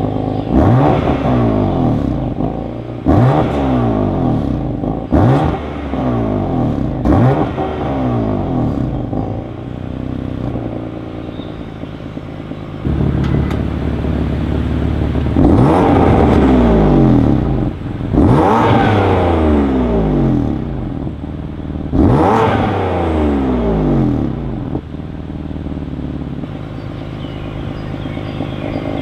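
BMW M4's twin-turbo straight-six, fitted with catless downpipes, being revved repeatedly through its exhaust: about seven revs, each climbing quickly and falling back to idle, four in quick succession and then, after a lull at idle, three longer ones.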